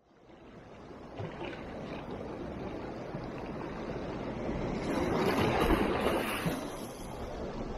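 Sea waves washing and breaking against rocks, a wave swelling to its loudest about five to six seconds in, then easing.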